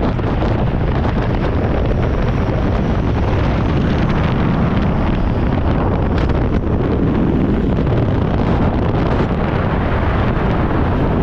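Steady, loud wind buffeting the microphone during a parachute descent under an open canopy.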